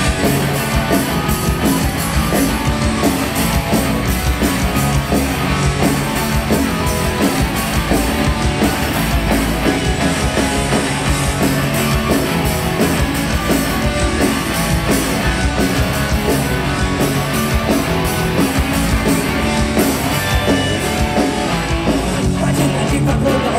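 Live rock band playing an instrumental passage through a concert PA: electric guitar over bass and drums, loud and steady, with no vocals.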